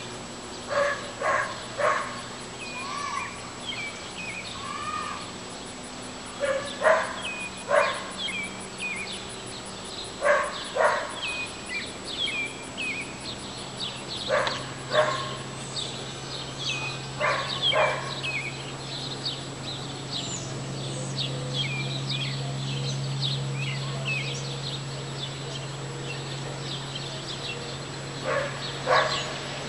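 A dog barking in short pairs of barks, several times over, with birds chirping throughout and a low steady hum that grows louder through the middle of the second half.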